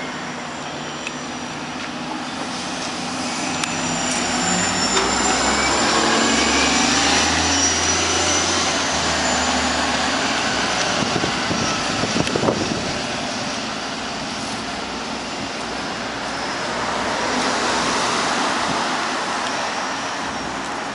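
Orion VII city bus passing close and pulling away up the street, its engine running with a high whine over a low hum; the sound swells as it goes by and fades as it draws away. A sharp knock about twelve seconds in, and a second, smaller swell of passing traffic near the end.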